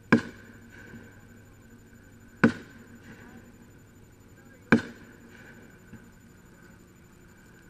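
Sharp firework bangs about every two and a quarter seconds, each followed by a short echo.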